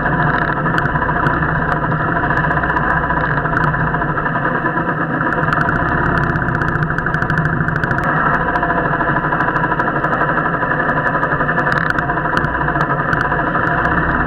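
Royal Enfield motorcycle engine running steadily while riding.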